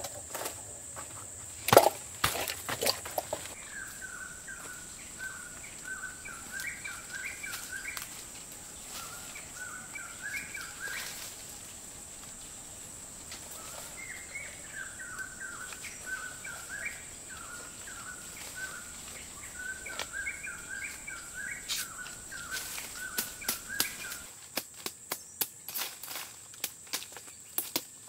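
Wood being struck by hand tools, with scattered sharp knocks, the loudest a single hard blow about two seconds in. Near the end the knocks quicken to a steady chopping rhythm of about two a second. Under them are repeated bird calls and a steady high insect drone.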